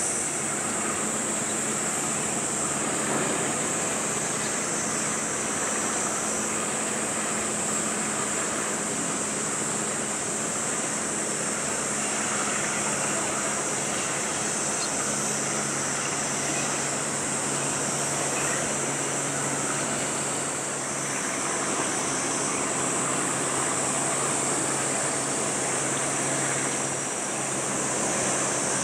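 Steady outdoor wash of water and wind with a low hum from a passing container ship. The hum shifts a little lower about halfway through, all under a constant high-pitched hiss.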